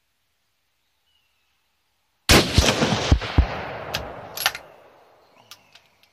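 A single shot from a 22-250 Remington rifle about two seconds in, its loud report rolling away with echoes over a couple of seconds. A few sharp metallic clicks follow near the end as the bolt is worked.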